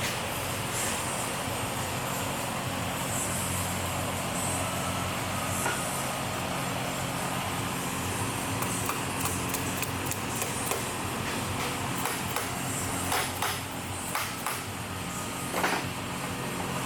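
A steady mechanical hum with scattered sharp clicks and knocks in the second half.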